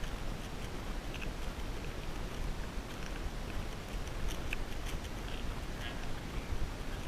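Wind rumble and handling noise on a GoPro's microphone as the camera is moved around, with scattered faint clicks and ticks.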